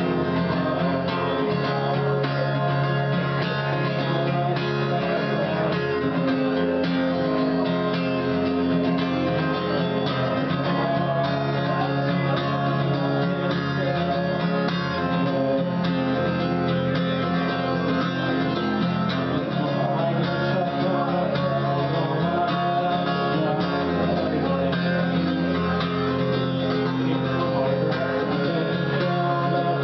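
Live guitar music, played steadily with held notes.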